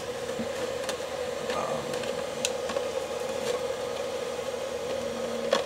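Small cooling fan running inside a homemade bench power supply case: a steady hum with an even rush of air. A few light clicks from the case being handled.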